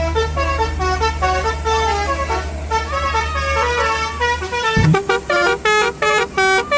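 Telolet bus horn, a multi-tone musical horn, playing a quick melody of short stepping notes over a steady low engine rumble. About five seconds in the rumble stops with a thud, and the horn goes on in short choppy blasts.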